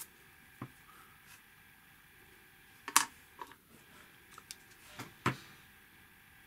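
Scattered small clicks and taps of die-cut model-kit puzzle pieces being handled and pressed together by hand, with the sharpest clicks about three seconds in and again a little after five seconds.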